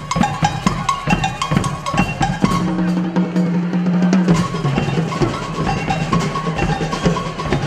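Marching showband playing: snare and bass drums beating a march rhythm, with metal bell lyres ringing out the melody and a held low note partway through.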